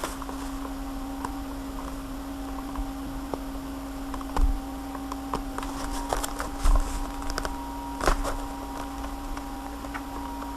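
Scattered clicks, taps and knocks of a product box and its packaging being handled and opened, over a steady low hum.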